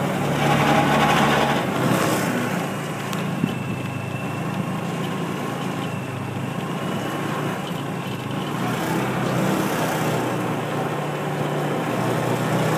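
Small engine of a ride-on vehicle running steadily as it is driven along, a constant low drone with a brief click about three and a half seconds in.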